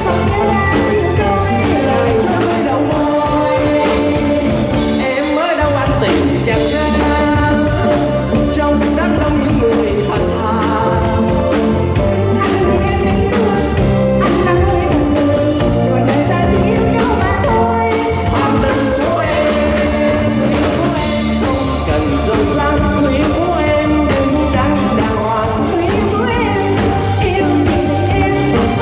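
Live band with keyboard, drum kit and electric guitar accompanying a woman singing into a microphone, with a steady drum beat throughout.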